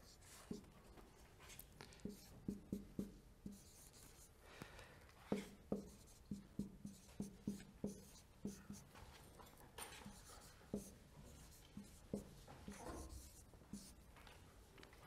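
Marker pen writing on a whiteboard: faint, short taps and strokes that come in irregular clusters as symbols are written out.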